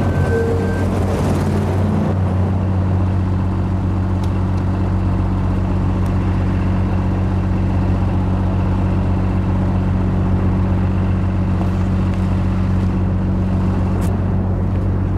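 Tour coach's engine running with a steady low hum at constant speed.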